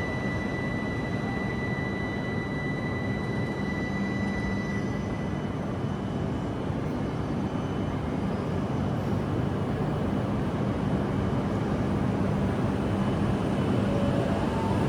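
Steady running noise of a Tohoku Shinkansen train heard inside the passenger cabin: a low rumble and hum, with a thin high whine for the first five seconds or so that then fades.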